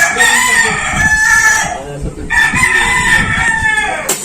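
Rooster crowing, two long crows one after the other, the second trailing off with a falling pitch.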